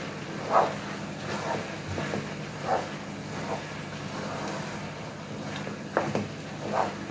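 Wooden spoon stirring cooked minced-meat filling in a large pot, mixing in chopped parsley, with a scrape or knock against the pot every second or so, the loudest about half a second in. A steady low hum runs underneath.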